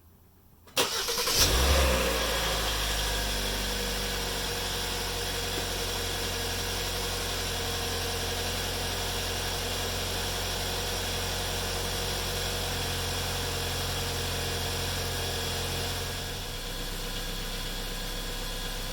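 2020 Hyundai Santa Fe's 2.4 GDI four-cylinder engine cranking and starting about a second in, flaring up briefly, then settling into a steady idle that eases down a little near the end. It is the first start after an oil and filter change, run to build oil pressure and check for leaks.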